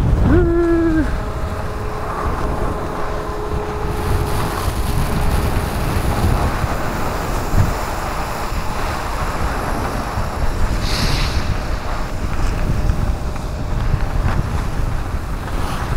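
Wind rushing over the microphone of a skier's camera during a downhill run, a steady noisy rush heaviest in the low range, with a brief voice-like sound near the start.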